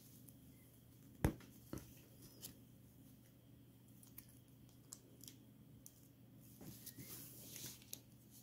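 Small plastic minifigure parts being handled and pressed together: one sharp click about a second in, a second click soon after, then scattered light ticks and a soft rustle of handling near the end.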